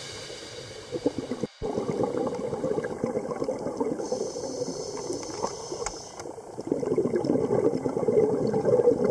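Background music fading out, then a sudden cut to underwater audio: irregular bubbling and gurgling water noise, louder again near the end.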